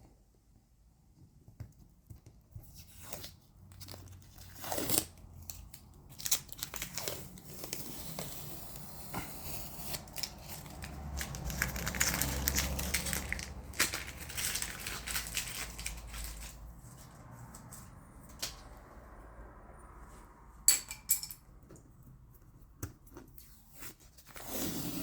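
Masking tape being peeled off in strips, a ripping, rustling sound with crinkles and a few sharp snaps; the longest stretch of peeling runs from about 6 to 17 seconds in.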